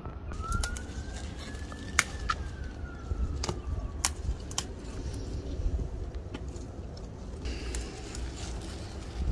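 Red peppers being snapped off the plant by hand, giving a few sharp clicks, with leaves rustling near the end. Under it, a distant siren wails once, rising and then falling.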